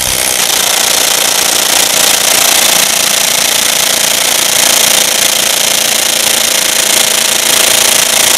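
Makita DTW300 18V brushless cordless impact wrench hammering steadily at full trigger as it tightens a bolt in a hydraulic bolt-tension tester. The rapid-fire impacts are driving the bolt toward its maximum clamping force.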